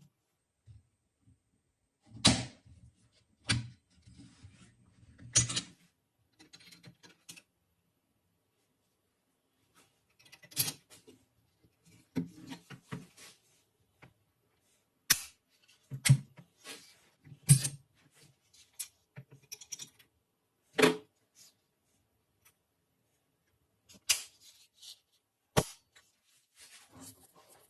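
Metal parts of a Mauser rifle being handled: a dozen or so separate sharp clicks and knocks with quiet pauses between them.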